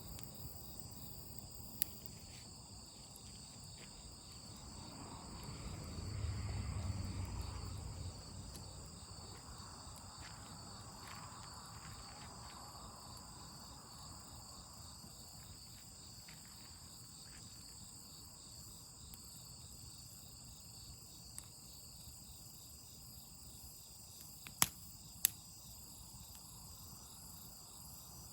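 Crickets and other insects chirping steadily in a high-pitched chorus. A low rumble swells and fades about six seconds in, and scattered sharp clicks sound, the two loudest in quick succession near the end.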